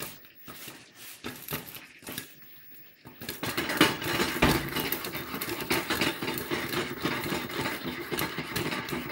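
Popcorn popping in a covered saucepan, first as scattered pops. About three seconds in, the pan is shaken on the gas hob's grate, giving a steady, louder rattle of corn and metal.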